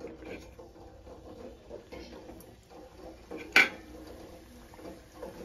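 Samosas going into oil in an aluminium kadhai, with faint frying sounds and small ticks. About three and a half seconds in, one sharp clink against the pan.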